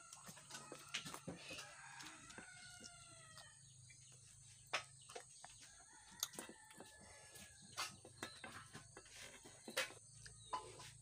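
A rooster crows once, faintly, about two seconds in, with a pitch that rises slightly. Scattered soft clicks run through it.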